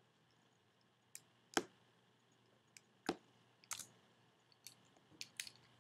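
Faint, irregular sharp clicks, about eight in all, from clicking computer controls while a drawing is selected and cleared. The loudest comes about one and a half seconds in.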